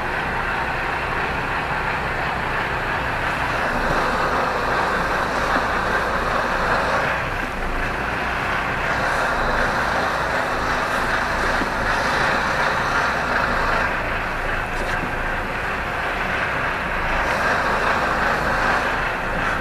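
Lorry's diesel engine running, heard from inside the cab as the truck is manoeuvred slowly, with a steady hiss over it.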